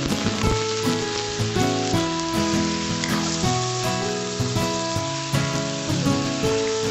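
Raw chicken pieces with onion and ginger sizzling in hot oil in a wok, being stirred and turned with a metal spatula, a steady frying hiss. Background music with held notes plays over it.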